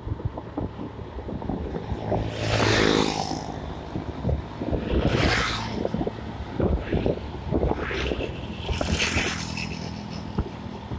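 Road traffic heard while riding: oncoming vehicles whooshing past three times, over steady wind buffeting on the microphone.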